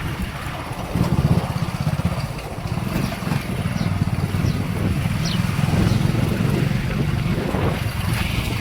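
A motor vehicle's engine running steadily, a dense low rumble with a rapid fine pulse.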